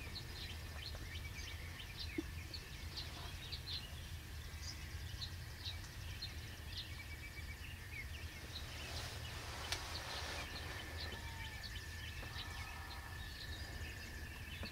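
Small birds chirping in a dawn chorus, many short faint calls overlapping, over a low steady rumble, with one soft click about ten seconds in.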